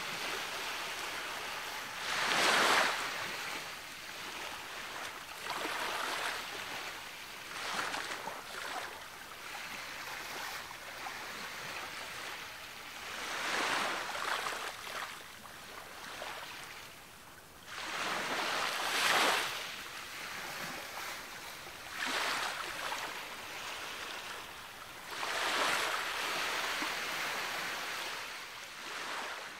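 Ocean waves breaking on a beach shore: each wave swells into a hiss and then washes back, coming every few seconds. The biggest breaks are about two and a half seconds in and just after the middle.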